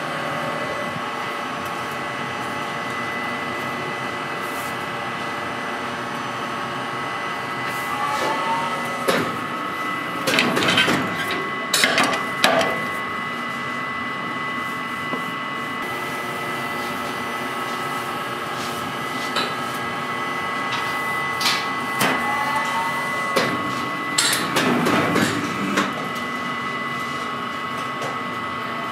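Baumkuchen oven machine running, its rotating spit giving a steady hum with a thin, constant high whine. Twice, once about ten seconds in and again about twenty-four seconds in, there are a few seconds of clattering knocks.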